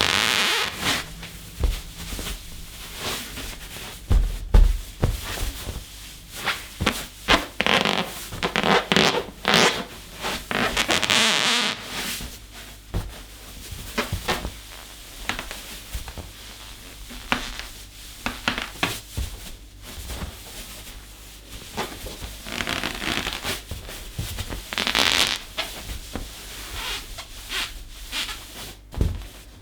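An inflated balloon being rubbed and squeezed by hand, giving irregular rubbing squeaks and scrapes of varying length without popping.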